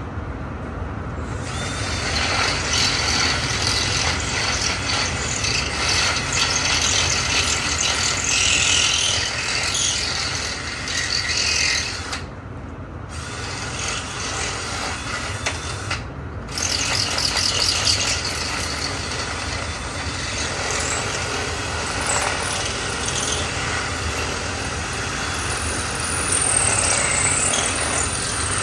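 Power drill boring into the wooden edge of a door to deepen the deadbolt hole, a steady motor hum with the bit grinding and scraping through wood. It stops briefly twice, about twelve and sixteen seconds in.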